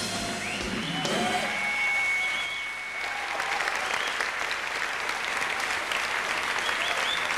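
Large audience applauding, the sound growing fuller about three seconds in, over the last of the band's music in the first second.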